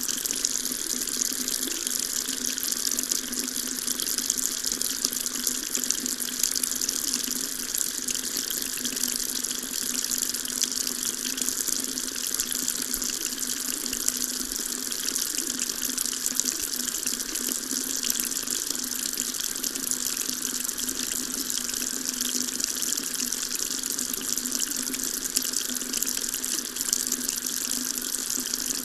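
Water tap running in a steady stream, splashing into a sink with an even hiss.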